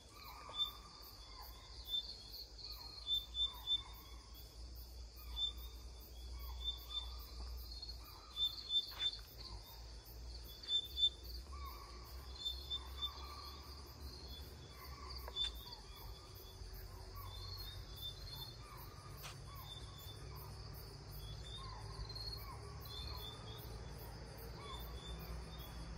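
Spotted deer (chital) alarm calls: short, sharp calls repeated every second or two, often in twos and threes, over a steady chirring of insects. Calls like these can mean a tiger is close by.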